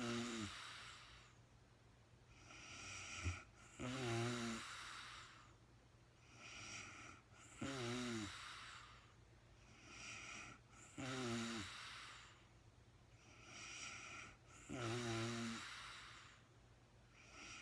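Woman snoring in sleep: five snores about three and a half seconds apart, each opening with a short snore that falls in pitch, with a softer breath between. A brief sharp click comes just before the second snore.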